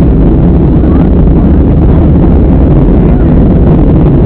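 Cabin noise inside a Southwest Airlines Boeing 737 in flight: a loud, steady low drone of the jet engines and the air rushing past the fuselage.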